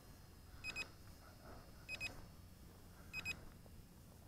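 SJRC S20W drone's recording alert: a faint electronic double beep repeating about every 1.3 s, three times, signalling that video recording is on.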